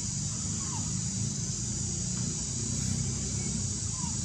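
Steady outdoor background: an even high insect drone over a low rumble, with two faint short chirps, one about half a second in and one near the end.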